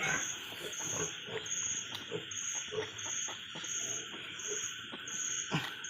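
Background insects chirring steadily, with one high chirp repeating about every two-thirds of a second. Faint short low noises come and go underneath.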